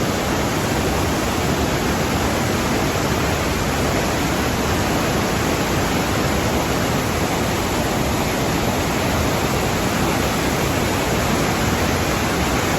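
The Rhine Falls, a large river waterfall, pouring with a loud, steady rush of falling water that does not change.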